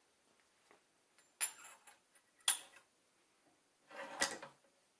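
Two sharp metallic clicks about a second apart, then a short scraping knock near the end: a headspace gauge going into the chamber of a Savage Model 111 rifle action with a .458 Winchester Magnum barrel, and the bolt being worked against it. The bolt does not close on the gauge, so the headspace is set too tight.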